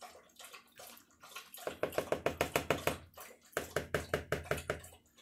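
A spoon stirring thick beef stew in a Tupperware microwave pressure cooker pot: wet, quick strokes, about seven a second, in two runs.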